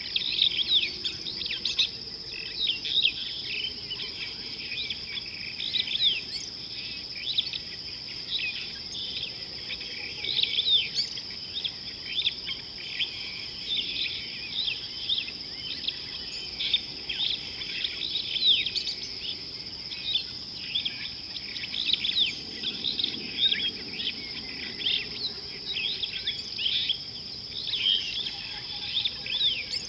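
Steady, unbroken high-pitched insect drone with many short bird chirps and whistles over it, coming thick and fast.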